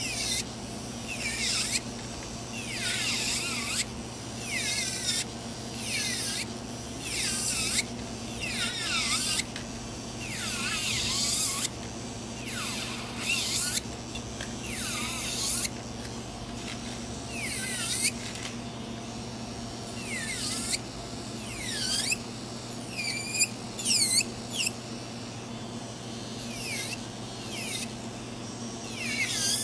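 Electric nail drill with a barrel bit grinding gel polish off a fingernail in repeated short passes, about one every second or two, over the motor's steady low hum. Each pass is a grinding whine that falls in pitch.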